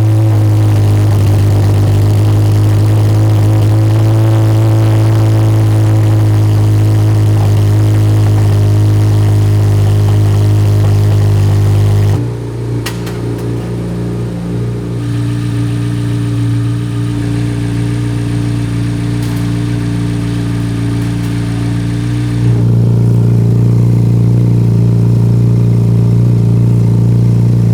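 Chevrolet C8 Corvette V8 idling through a newly fitted aftermarket exhaust and catalytic converters, just after its first start. It holds a steady high idle, drops to a lower, quieter idle about twelve seconds in, and picks back up to the louder note about twenty-two seconds in.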